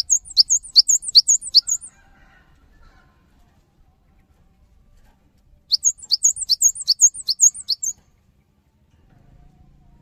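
Cinereous tit (gelatik batu) singing in two bouts of about two seconds each. Each bout is a quick, high-pitched phrase of sharp downslurred notes repeated five or six times, about three a second; the second bout starts a little past halfway.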